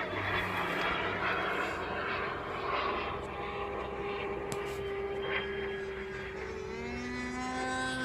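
Radio-controlled model airplanes flying overhead. A rushing noise gives way to a steady motor whine from about three seconds in, and a second, lower-pitched whine joins near the end.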